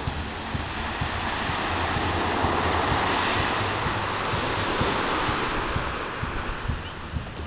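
Small waves breaking and washing up a sandy beach; the surf swells over the first few seconds, peaks in the middle and eases off near the end. Wind buffets the microphone underneath.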